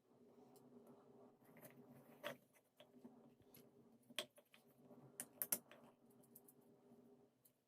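Near silence: a faint steady hum with scattered small clicks and taps, a few of them sharper in a cluster a little past the middle.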